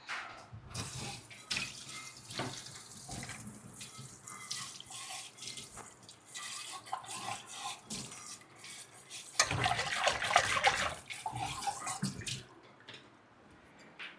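Kitchen tap running into a sink, the water splashing unevenly with a few knocks, louder for a couple of seconds near the end.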